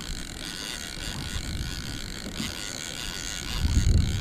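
Wind buffeting the camera microphone, a low rumble that gets heaviest about three and a half seconds in.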